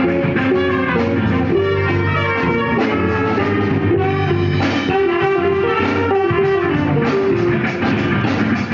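Live funk-jazz band playing an instrumental, with sustained melody notes over a steady drum beat.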